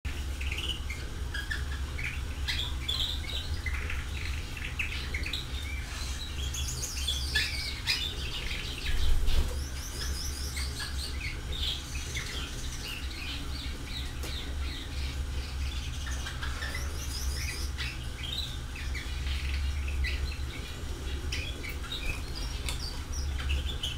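Many small birds chirping and twittering in quick, overlapping calls over a steady low hum, with a louder low bump about nine seconds in.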